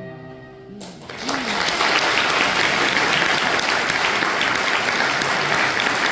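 Audience applauding, which swells up about a second in as the song's last held note dies away, and keeps going.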